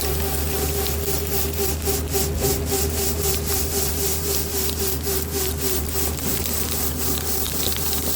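Kubota F3060 diesel tractor running with its front rotary broom spinning: a steady engine drone under a rhythmic swishing of the brushes, about five sweeps a second.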